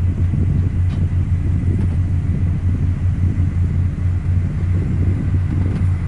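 Komatsu motor grader's diesel engine running steadily with a deep, even rumble as the grader works forward spreading soil.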